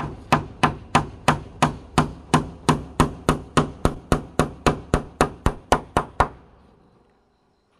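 Hammer blows on wood in a steady run of about twenty strikes, roughly three a second, stopping about six seconds in.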